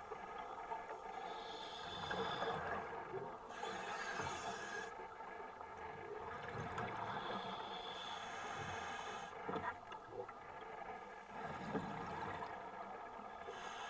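Scuba diver breathing through a regulator underwater: hissy inhalations alternate with low, bubbling exhalations in a slow cycle of a few seconds.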